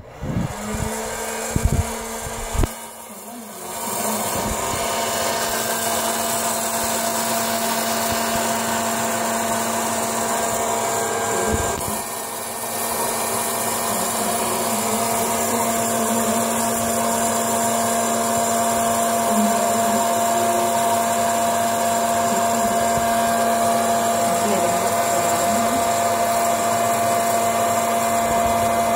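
Electric hot-air popcorn popper running: its blower fan starts up a few seconds in and then blows steadily with a steady hum while the kernels heat.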